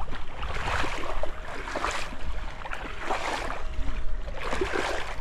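Water sloshing and splashing in irregular surges, with wind buffeting the microphone in a steady low rumble.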